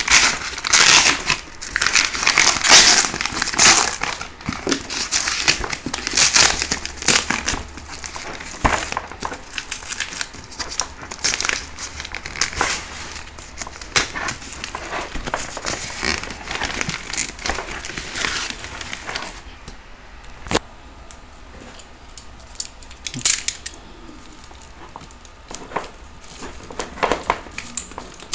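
Cardboard shipping box and plastic-wrapped retail box being handled and pulled about: crinkling, rustling and scraping with many sharp clicks. It is loudest in the first few seconds, then quieter with scattered clicks and taps from about 19 seconds in.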